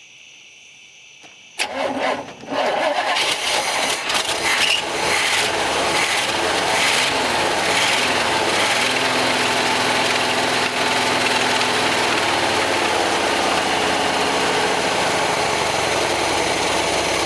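1965 Chevrolet C10 pickup's engine cranking and firing about a second and a half in, catching on fuel poured down the carburetor, then running steadily. The engine is starved of fuel from the tank, its fuel filter run dry.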